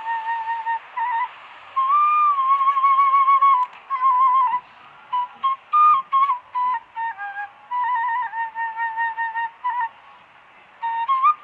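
Background music: a solo flute playing a single wavering, ornamented melody line, with short pauses between phrases.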